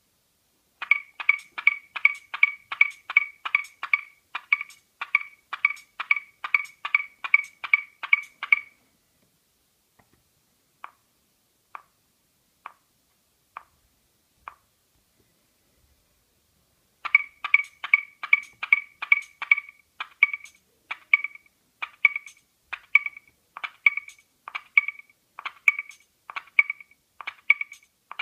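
Korg Volca Beats drum machine playing a sequenced pattern of short, pitched, clicky hits at about four a second, stepping in time to an external MIDI clock. About eight seconds in the pattern stops, leaving a few faint single ticks about once a second. The pattern comes back later and slows toward the end.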